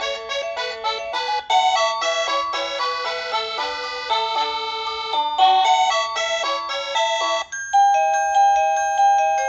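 Wireless doorbell chime playing its built-in electronic melodies: a tune of quick notes, then a short break about seven seconds in and a different tune of slower ringing notes.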